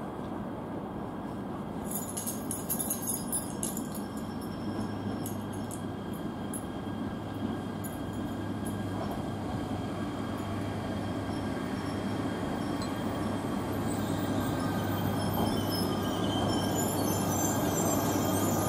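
E3-series Yamagata Shinkansen train running along the platform: a steady rumble that grows gradually louder, with brief high wheel squeals and clicks about two to four seconds in and again near the end.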